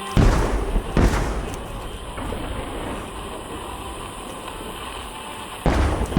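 Aerial firework shells bursting: a loud boom just after the start, another about a second later, and a third near the end, each trailing off in a low rumble that hangs in between.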